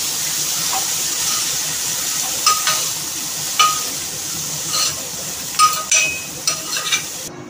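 Chicken pieces sizzling in oil in a stainless steel pan as a steel spoon scoops them out, with repeated ringing clinks of the spoon against the pan and a steel bowl, several of them in the second half. The sizzling cuts off suddenly just before the end.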